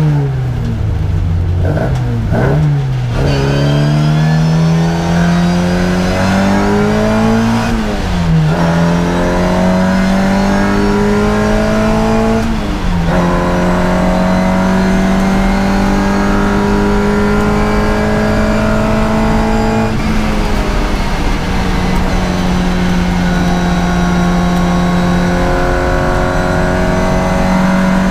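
Race car engine heard from inside the cabin at speed. The revs fall and rise quickly in the first few seconds, then climb with two sharp drops about 8 and 13 seconds in as it changes up a gear, then hold high and nearly steady.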